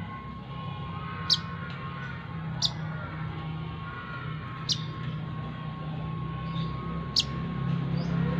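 Brown-throated sunbird giving four short, sharp chirps, each falling in pitch, spaced a second or two apart, over a steady low rumble of passing traffic.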